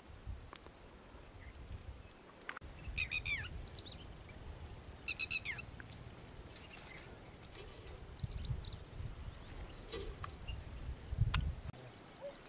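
Small birds chirping. Quick runs of repeated high notes come about three and five seconds in, with a few rapid calls around eight seconds and scattered single chirps between, over a low rumble.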